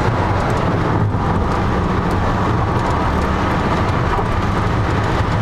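BMW Z4 at speed heard from inside its cabin: engine, tyre and wind noise running loud and steady, with no clear change in revs.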